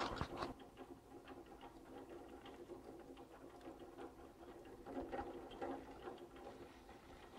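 Heuss short T-bar lift's haul rope running over a tower's roller batteries: a steady whirring hum with a fast, uneven clicking of the rollers, and a louder clatter at the start and again about five seconds in.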